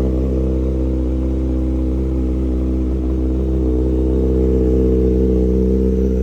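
Kawasaki ZX-6R inline-four engine running steadily at a constant engine speed, its note holding level without revving.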